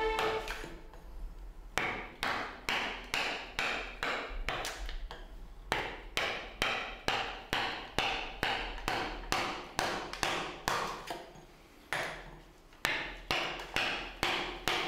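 Mallet driving a chisel into a wooden block, sharp knocks at about two blows a second, while the outer wood is roughed off a Buddha statue. The blows stop for about a second near the end, then resume.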